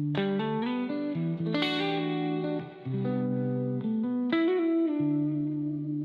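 Instrumental break in a slow R&B song: an electric guitar with effects plays plucked notes and chords, with no singing.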